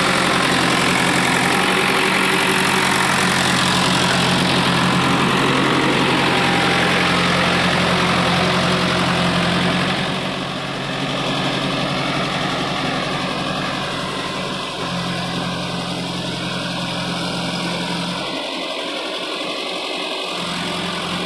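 Diesel engine of heavy earthmoving machinery running at a steady idle. It gets a little quieter about ten seconds in, and its low hum falls away near the end.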